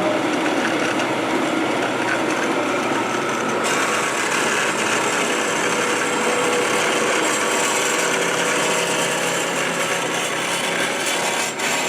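Horizontal band saw running steadily with its blade turning as the saw head is lowered by its feed knob. About four seconds in the sound takes on a brighter, hissier edge.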